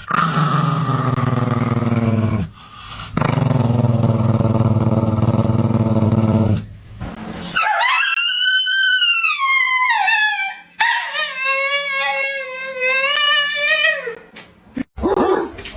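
A dog howling: two long, low held notes, then a higher howl that rises and falls, then a steady held howl near the end.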